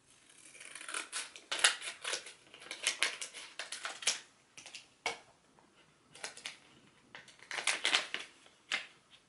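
Scissors snipping open a small book's wrapper, with the wrapper crinkling as it is cut and handled. The sound comes in irregular clusters of short snips and rustles, with pauses in between.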